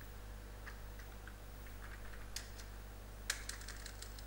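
Computer keyboard keystrokes: a few scattered key clicks, then a quick run of several keys a little after three seconds, over a steady low hum.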